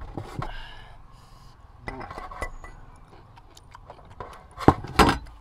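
Spoons and fingers clinking against a metal serving tray and a ceramic sauce bowl during a meal, a scatter of light clicks with two louder sharp clinks near the end.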